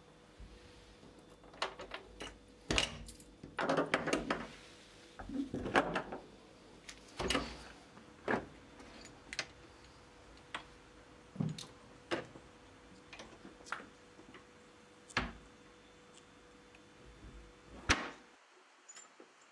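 Irregular knocks, clicks and rattles of a person at a front door, handling its latch and bolt. The loudest is a sharp click near the end, and a faint steady hum lies under it all.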